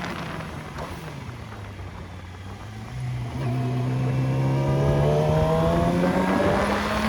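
Vehicle engine that eases off, falling in pitch, then about three seconds in picks up and accelerates with a steadily rising pitch, growing louder.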